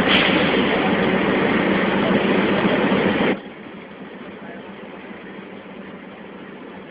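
A loud, steady vehicle engine running, which cuts off abruptly about three and a half seconds in. A much quieter steady background is left after it.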